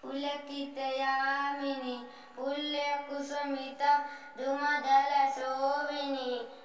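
A boy singing a Sanskrit prayer solo and unaccompanied, in long held notes with short pauses between phrases.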